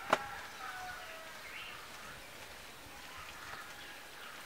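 A single sharp click or knock just after the start, then quiet outdoor background by the water with faint bird calls.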